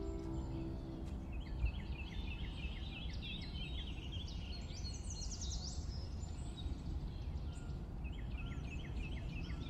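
Small birds chirping in quick, repeated short phrases over a steady low rumble of outdoor ambience, as the last notes of the music die away at the start.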